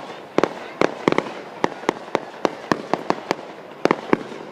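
Fireworks show: a rapid, irregular string of sharp bangs from exploding shells, about two to three a second, bunching into a quick volley near the end.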